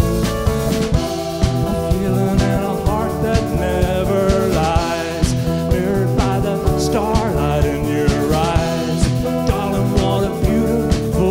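Live band playing: hollow-body electric guitar, bass guitar and drum kit keeping a steady beat, with a man singing over them.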